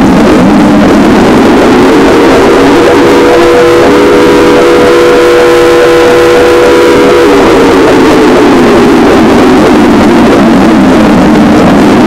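Extremely loud, distorted emergency-alert siren sounding one slow wail. Its pitch climbs over the first couple of seconds, holds high for several seconds, then sinks slowly back down toward the end.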